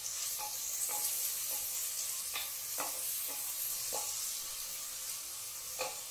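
Chopped onions sizzling in hot oil in a pressure cooker, being fried until soft, while a wooden spatula stirs them with short scrapes and knocks against the pot every second or so over a steady hiss.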